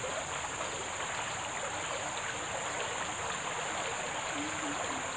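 Steady riverside ambience: the constant hiss of a flowing muddy river, with a steady high-pitched insect drone over it.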